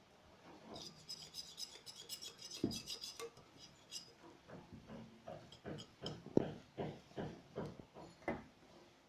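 Dough being worked by hand in a bowl: a stretch of rapid faint clicking and rustling, then soft knocks against the bowl about three a second.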